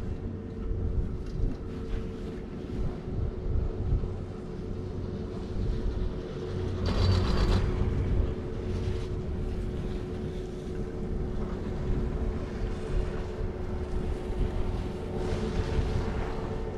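Riding a POMA Challenger detachable quad chairlift: wind rushing on the microphone over a low rumble and a faint steady hum. A brief clattering rush comes about seven seconds in.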